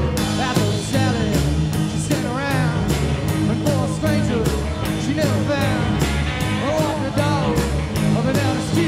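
Rock song with a steady drum beat and a singing voice.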